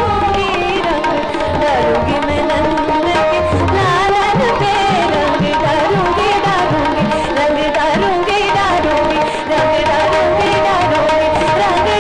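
A woman singing a Hindustani hori thumri in raga Kafi, with quick, wavering ornamented runs, over tabla strokes and steady held drone notes.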